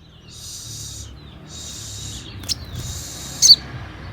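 Kolibri manggar sunbird calling: three drawn-out, high hissing 'sss' notes with short gaps, then a sharp downward chirp near the end.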